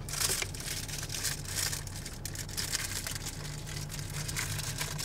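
Thin plastic water bottle crinkling and crackling in the hand as its cap is twisted off and it is tipped up to drink. Underneath is a steady low hum from the car's running engine.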